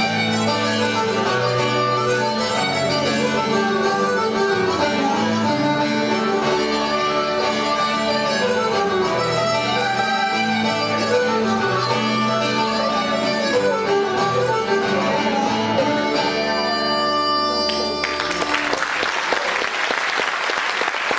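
Fiddle, chromatic harmonica and acoustic guitar playing a hornpipe together, ending on a held final chord about sixteen seconds in. About two seconds later audience applause breaks out.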